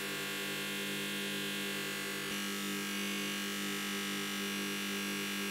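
Bench grinder with a cloth buffing wheel running steadily: a constant motor hum while a steel handle is buffed on the wheel.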